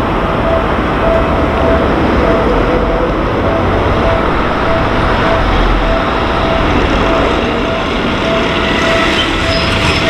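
A Seibu Shinjuku Line electric commuter train running up and passing close by, a steady rumble of wheels on the rails. Over it, a railway level-crossing warning bell rings in a steady repeating ding.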